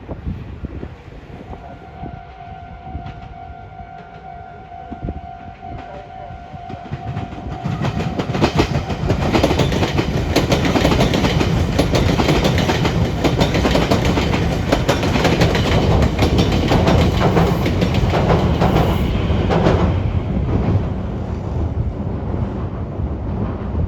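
Meitetsu electric train running through the Biwajima junction turnouts, its wheels clattering in a rapid run of joint clicks over the points. It comes in about eight seconds in, stays loud for some twelve seconds, then eases off. Before it, a steady high tone holds for several seconds.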